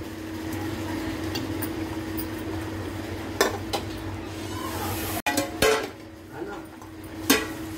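A spoon stirring and scraping a pot of chicken korma as it fries, with about five sharp knocks of the spoon against the pot in the second half, over a steady hum.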